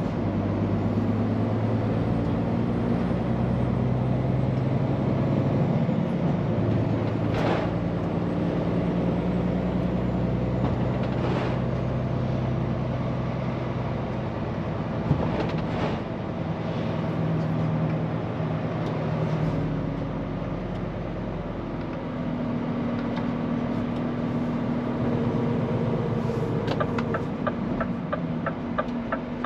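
Scania P410 truck's diesel engine running on the road, its pitch shifting up and down several times, with road noise and a few brief rushing swells. Near the end a rapid regular ticking starts.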